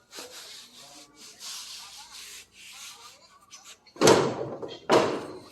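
Rough scraping or rubbing noises in short stretches, then two loud thumps about a second apart near the end.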